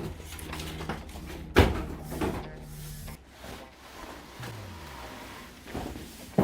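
Knocks and thumps from handling the refrigerator and its packaging, with one sharp knock about a second and a half in and another at the end.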